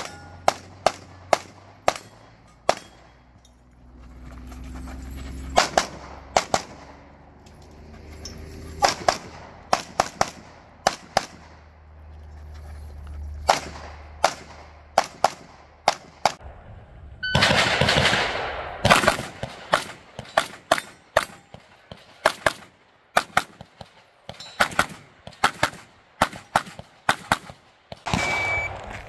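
Competition pistol shots fired in quick pairs and rapid strings, with short pauses between strings. About two-thirds of the way through there is a brief rush of noise under the shots.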